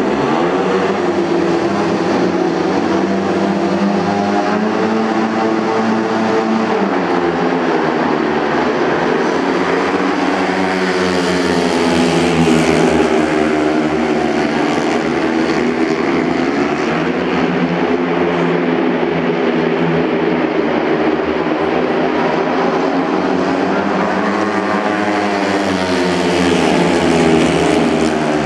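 Four speedway bikes racing, their 500 cc single-cylinder methanol-fuelled engines rising and falling in pitch over and over as the riders accelerate and ease off around the oval. The sound swells twice as the pack comes closer, about halfway through and near the end.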